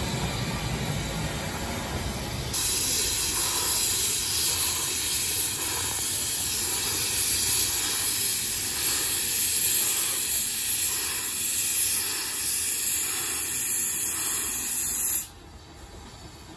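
Narrow-gauge steam locomotive's open cylinder drain cocks hissing loudly as it moves off, starting abruptly a few seconds in with faint regular beats beneath, then cutting off suddenly near the end as the cocks are closed.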